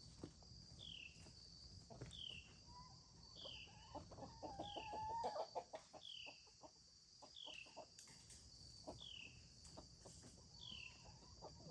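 Hens clucking softly, loudest about four to five seconds in. A short high chirp repeats about once a second.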